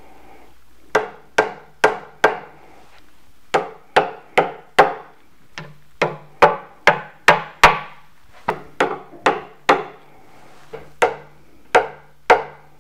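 A mallet tapping small wooden blocks into the corners of a wooden table frame: about twenty sharp knocks, mostly in quick runs of three to five, just under half a second apart.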